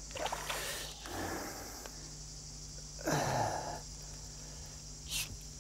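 A man's brief grunt, falling in pitch, about three seconds in, with a short sharp noise near the end and light rustling early on, over a steady low hum.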